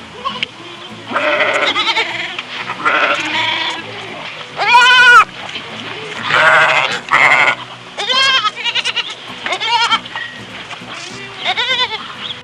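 A series of bleats from goats or sheep, about nine wavering calls, the loudest about five seconds in, over background music.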